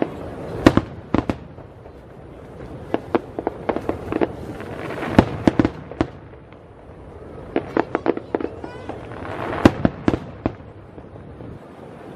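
Aerial fireworks shells bursting in a display: an irregular run of sharp bangs with crackling between them. There is a short lull about halfway, then a new cluster of bangs.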